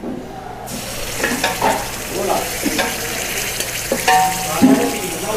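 Spiced onion gravy sizzling in hot oil in a pan as it is stirred, with scattered knocks of the stirring utensil against the pan. The sizzle starts under a second in.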